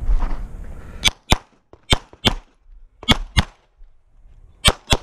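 9mm Glock 17 MOS pistol firing about eight shots in quick pairs, each pair about a third of a second apart, starting about a second in.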